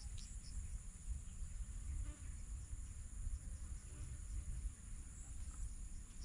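Insects chirring steadily in a high pitch, over a low, even rumble.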